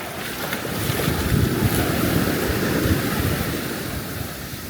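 Rough surf washing up on a beach, with wind buffeting the microphone. The wash swells about a second in and eases off toward the end.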